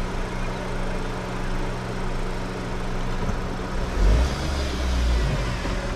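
Mahindra Thar's engine running steadily, with a deep rumble swelling in about four seconds in.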